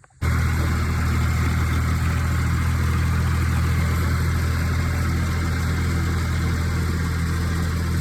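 Engine of a farm vehicle running steadily at a constant speed, heard up close. It cuts in abruptly just after the start.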